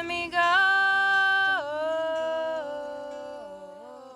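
A singing voice holds the closing notes of a song, gliding down about a second and a half in and making a short wavering run near the end as it fades out.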